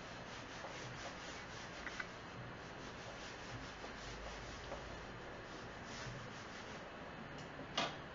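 Whiteboard eraser rubbing back and forth across the board, wiping off a drawing. Shortly before the end, a sharp click at the board's marker tray.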